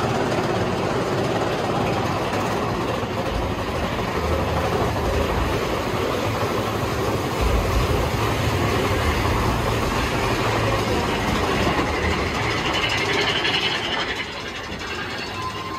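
Mine-train roller coaster cars running along the track, a steady loud rumble and rattle that drops somewhat near the end.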